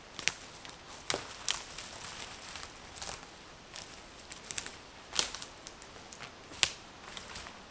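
Footsteps on a dry forest floor: irregular crunches and sharp snaps of dry leaves, needles and twigs underfoot, some much louder than others.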